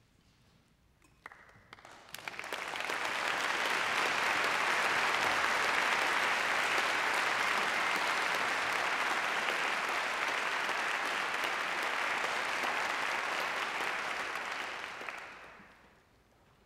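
Audience applauding: a few scattered claps about a second in, quickly building into steady, dense applause that fades away near the end.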